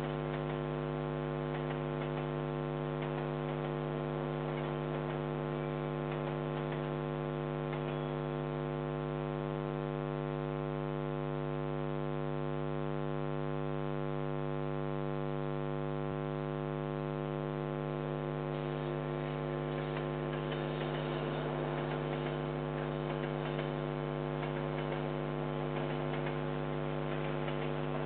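Steady electrical mains hum with a stack of buzzing overtones from the security camera's audio line. In the last several seconds the faint noise of a passing train joins it.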